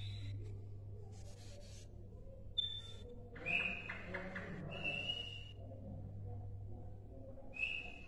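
Caged sikatan londo flycatcher giving short, thin whistled notes a second or two apart, the loudest about midway followed by a brief rattling chatter. A steady low hum sits underneath.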